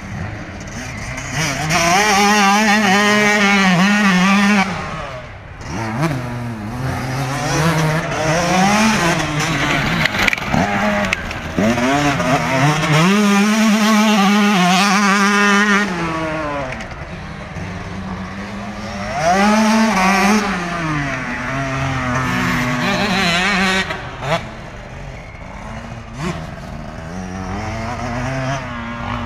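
Yamaha YZ125 two-stroke motocross bike revving hard as it rides past on the dirt track, its engine note climbing and dropping again and again as the rider shifts gears and rolls off, loudest in two long passes a few seconds in and around the middle, with shorter surges later.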